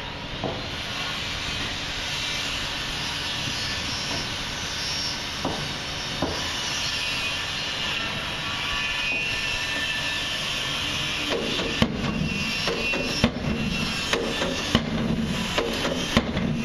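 Pile driver at work: a machine runs steadily, and from about eleven seconds in a run of sharp hammer blows starts, landing at uneven intervals, roughly one or two a second.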